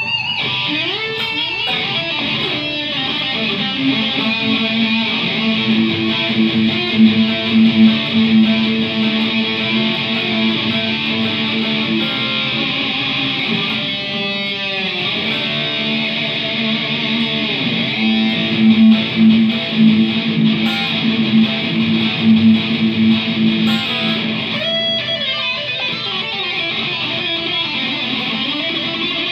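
Electric guitar played through a NUX MG100 multi-effects processor: a lead line of long held notes with vibrato, broken by a few sweeping pitch dives and swoops.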